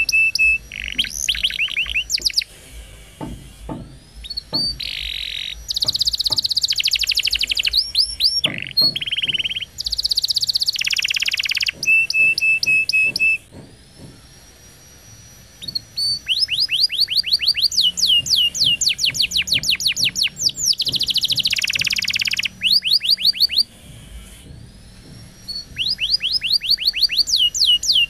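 Male domestic canary singing a long, varied song in full voice. Rapid rolling trills of falling notes alternate with buzzy rattles and a briefly held whistle, broken by two short pauses, about halfway and near three-quarters through.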